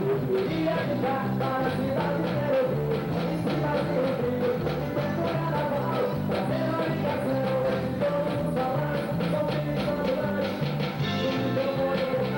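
A band playing music with a steady beat: drums, a repeating bass line and a melody line over them.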